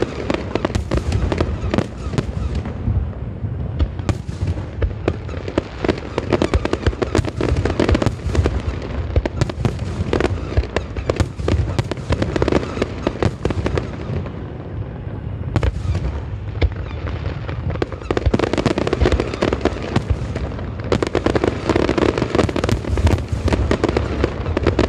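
Fireworks display: a dense, continuous barrage of aerial shells bursting, many bangs overlapping with crackle, easing off slightly about two-thirds of the way through and then building again.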